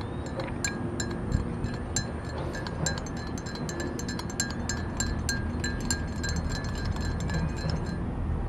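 A metal spoon stirring coffee in a glass mug, clinking rapidly and repeatedly against the glass with a bright ringing tone; the clinking stops near the end. A steady low background rumble runs underneath.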